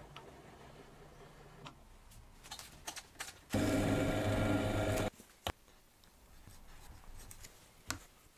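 A drill press running and boring through plywood for about a second and a half, starting and stopping abruptly in the middle. Before and after it there are only light clicks and knocks of small tools being handled.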